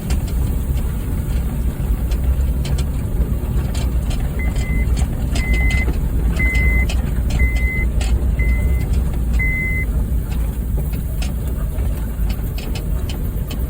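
Honda Fit driving over a rough dirt road: a steady low engine and road rumble with frequent knocks and rattles. About a third of the way in, six short high electronic beeps sound about a second apart.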